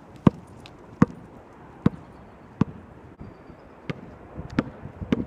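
A basketball being dribbled: about seven sharp bounces, roughly one every three-quarters of a second, with a slightly longer pause around the middle.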